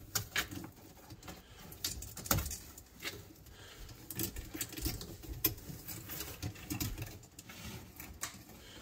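A Savannah monitor moving about on cork bark and branches, making irregular light clicks, taps and scrapes.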